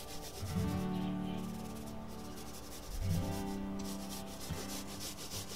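A small paint roller rubbing back and forth over a plywood panel as it spreads paint, a soft repeated swishing, over background music with held notes.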